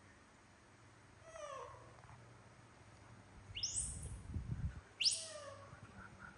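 Baby macaque monkeys squealing: a short falling whimper about a second in, then two sharp, high squeals that rise steeply in pitch, the second and loudest about five seconds in, each trailing off into a lower whine.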